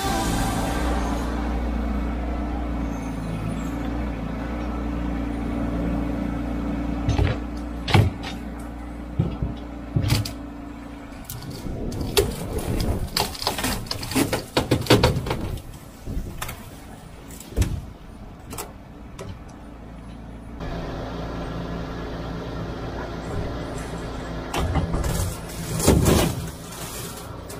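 Bobcat E10z mini excavator's engine running steadily under load as its arm drags and tips an old polyester pool shell out of the ground. A rapid string of knocks and scraping from the shell and arm comes in the middle, and a couple of loud knocks come near the end.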